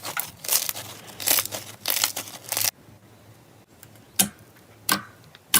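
Slime being squeezed and worked by hand: dense crackling and crinkling for the first two and a half seconds, then three separate sharp pops.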